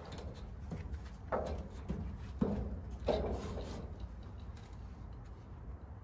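A wooden crossbeam and a corrugated metal roofing sheet being shifted by hand onto a freshly trimmed post: a few scrapes and knocks in the first few seconds, over a steady low rumble.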